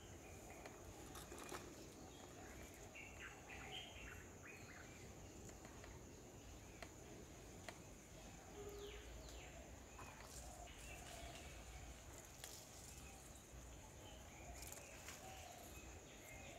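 Faint garden ambience: a steady high-pitched insect drone, with scattered short bird chirps and a few soft clicks.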